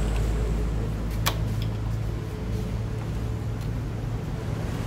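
Steady low hum of a running motor, with one sharp click about a second in.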